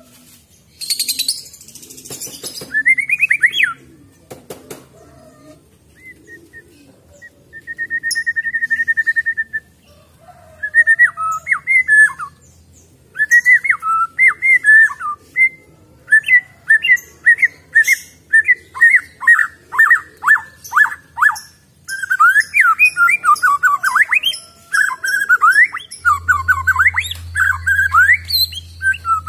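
White-rumped shama singing its natural, untutored song: varied whistled phrases and quick chattering notes, with one held whistle, growing into fast runs of repeated notes in the second half. A low hum comes in near the end.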